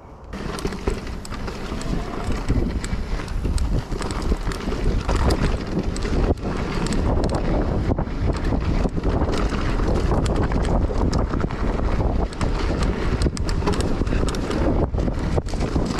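Wind buffeting the microphone of a rider's camera on a moving mountain bike, a steady low rumble with many short clicks and knocks from the e-mountain bike rolling over rough, loose ground.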